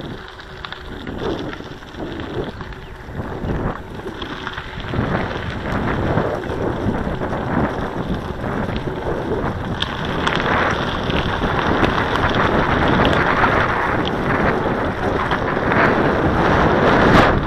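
Wind buffeting the microphone of a camera riding on a bicycle, with tyres rolling and crunching over a gravel dirt road. The rushing noise grows louder as the ride picks up speed.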